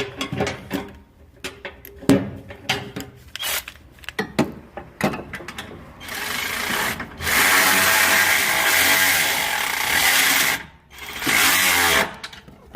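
Light metallic clicks and knocks of parts and tools being handled, then a power tool runs steadily for about four seconds, stops briefly, and runs again for about a second near the end, driving the nut down on a stabilizer link's bolt.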